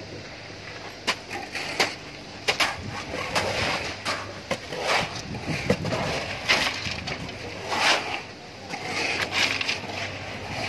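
Shovels scraping up wet concrete and dumping it into a steel panel mould, with irregular sharp knocks of shovel blades against the mould's edge, over a low steady hum.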